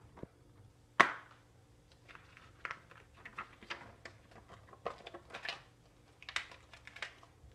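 A plastic Blu-ray case and its contents being handled: one sharp click about a second in, then a run of lighter clicks and rustles.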